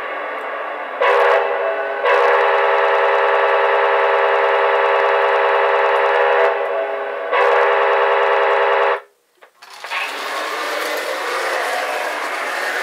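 Lionel 671 S-2 steam turbine model locomotive's whistle blowing: a short blast about a second in, a long blast of about four seconds, then one more of under two seconds. After a brief silence it sets off with a steady running sound.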